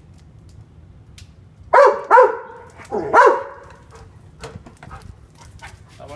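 German Shorthaired Pointer barking three times in quick succession about two seconds in, excited by the fireworks.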